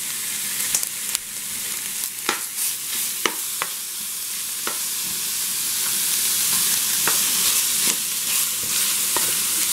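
Chopped bacon sizzling in a hot stainless steel skillet, the hiss growing a little louder, while a plastic slotted spoon stirs it, clicking and scraping against the pan several times.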